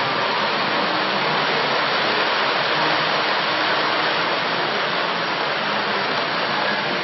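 Electric model train running past on its track: a steady, even whirring rush of wheels and motor.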